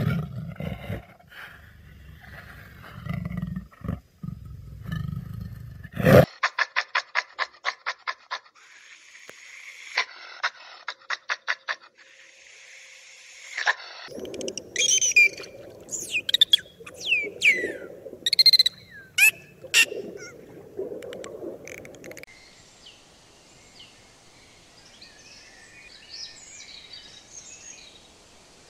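A string of different animal calls. The tail of a leopard's loud call at the start; then runs of fast, evenly spaced high calls, about six a second; from about 14 s in, a European badger's high falling squeals over low grunting noise; and faint high chirps near the end.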